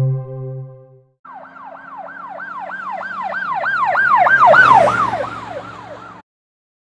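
Emergency vehicle siren in a fast yelp, several quick pitch sweeps a second over a low hum. It grows louder, then drops in pitch and fades as it passes, and cuts off abruptly near the end.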